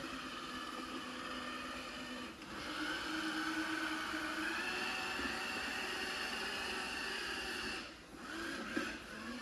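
Supra robot vacuum cleaner running with its mop attachment fitted: a steady motor whir with several high whining tones, dipping briefly about two seconds in and again near the end.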